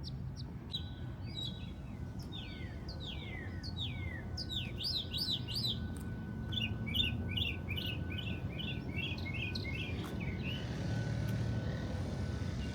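Songbirds singing: a run of downward-sliding whistled notes, then a quick series of short chirps, over a steady low background rumble.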